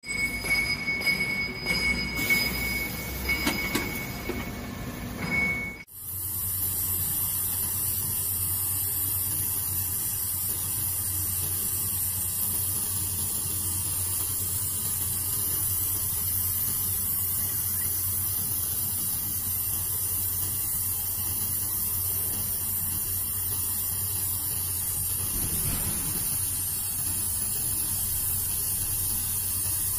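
Automatic laser seam welding machine running a weld: a steady hiss with a low hum underneath. For the first several seconds there is a different, uneven machine noise with a high squealing tone, which cuts off abruptly about six seconds in, when the steady hiss begins.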